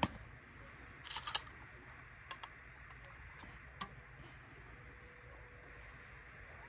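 Light clicks and taps of an arrow being handled and nocked on a traditional bow between shots: a small cluster a little over a second in, then a few single clicks, over a faint steady background. A sharp knock comes right at the start, just after the previous shot.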